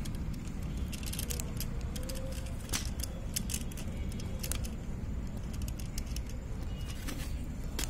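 Scattered light clicks and small rattles as a stripped copper wire end is pushed into the lower screw terminal of a modular electrical switch, over a steady low background rumble.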